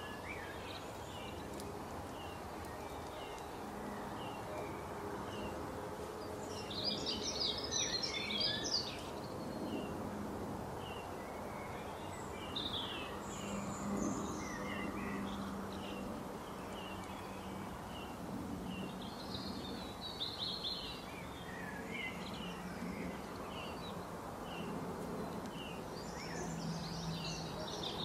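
Garden birdsong: short chirps repeated every second or so, with a few brief busier bursts of song, over steady background noise.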